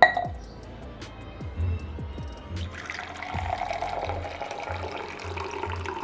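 A steel tumbler set down on a counter with a sharp, ringing clank, then water poured from a bottle into the tumbler from about two and a half seconds in. Background music with a steady beat plays throughout.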